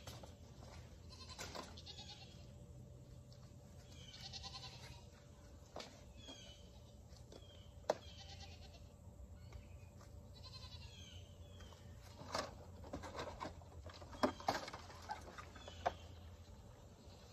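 Goats bleating repeatedly in the background, with the light clatter and knocking of plastic seedling trays and pots being handled, loudest from about twelve seconds in.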